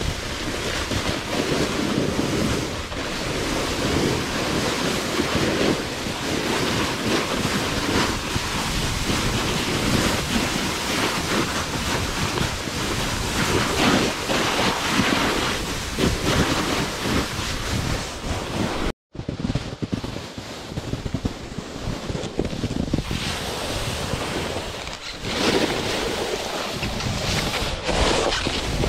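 Wind rushing over the camera microphone and a snowboard's edges scraping and sliding on snow while riding downhill. The noise is a steady rough rush that rises and falls with the turns, and it cuts out for an instant about two-thirds of the way through.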